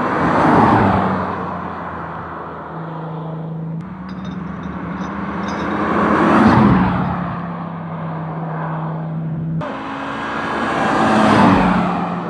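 Three Audi cars driving past one after another, each engine swelling as the car comes close and fading as it goes on up the road, with the closest passes about half a second in, about six and a half seconds in, and about eleven and a half seconds in.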